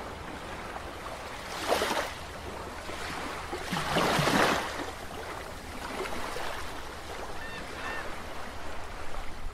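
Water sound effect: a steady rush of water with two louder whooshing swells, a short one about two seconds in and a bigger one about four seconds in, and a few small bubbling blips near the end.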